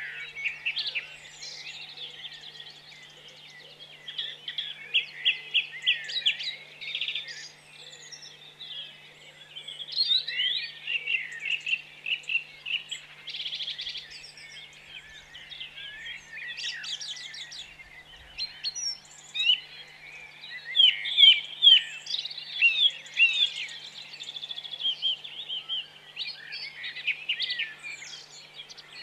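Birdsong chorus: many birds chirping and trilling at once, their calls overlapping, with louder bursts of song about two-thirds of the way in. A faint steady low hum runs underneath.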